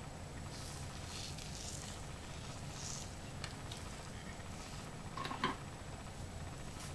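Faint rustling of hands rubbing hair butter through damp hair, with a few light clicks and one brief louder tap about five seconds in, over a steady low hum.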